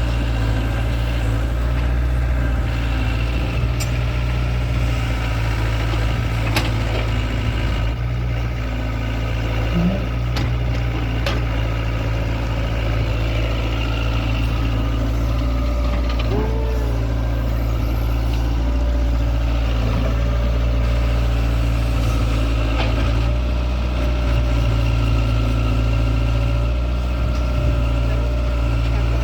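Excavator's diesel engine running steadily while it digs, with a few sharp knocks now and then.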